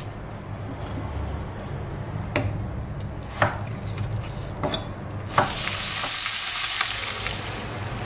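A chef's knife cutting potato on a wooden cutting board, four single strokes about a second apart, then pork belly frying in a pan, a loud sizzle setting in about five and a half seconds in.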